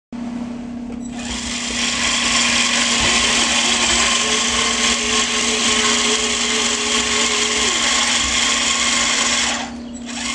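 Radio-controlled model hydraulic excavator (CAT 5110B replica) working: a steady electric whine of its pump and drive motors as the boom and tracks move, coming in about a second in and dropping off near the end over a constant low hum.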